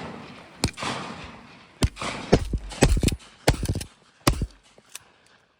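Shotguns firing at doves: about a dozen sharp shots in quick succession, several close together as from more than one gun, over a steady rushing hiss.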